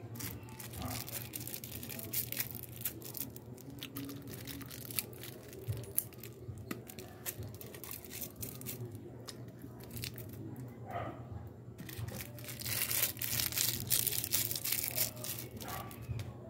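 Plastic packaging crinkling and tearing, with scattered sharp clicks and a longer, denser rustle near the end, as dried spices are opened and added to the pot.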